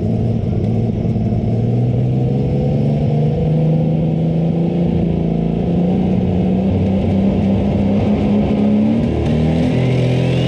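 Light modified pulling tractor's engine running hard at high revs through a pull, its pitch slowly climbing and then dipping briefly shortly before the end. A thin whine rises steeply in pitch near the end.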